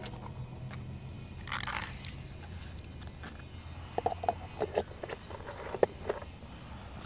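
Dry grass and leaf litter crackling and crunching close by, in a run of sharp clicks and scrapes between about four and six seconds in, over a low steady background hum.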